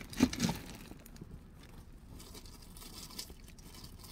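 Faint rustling and crunching of plastic bags full of small porcelain Wade Whimsies figurines being reached for and handled, after a short louder sound near the start.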